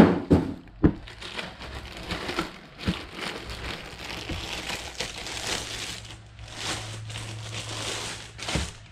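Clear plastic bag crinkling and rustling as it is worked off a car subwoofer by hand, with a few knocks as the speaker is handled.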